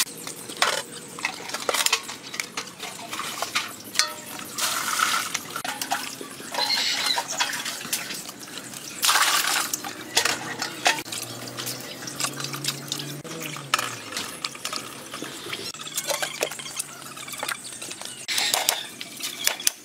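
Water splashing and sloshing in a metal basin as food is washed by hand, with scattered clinks and knocks of bowls and pots against the metal. Louder splashes come in several surges.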